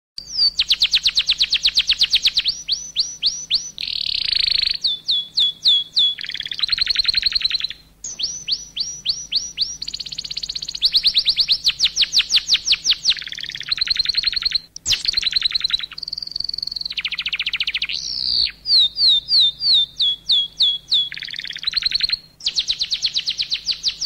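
Canary singing: long fast trills of high repeated chirps alternating with buzzy rolls, in phrases broken by a few short pauses.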